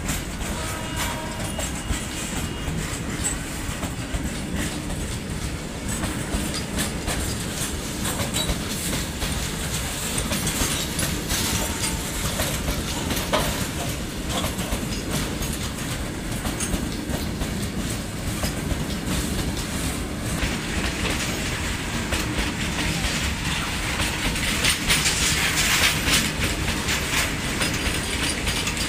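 Long goods train of covered box wagons rolling past close by: a steady rumble of steel wheels on rail with the clickety-clack of wheels over rail joints. It grows louder and sharper for a few seconds near the end.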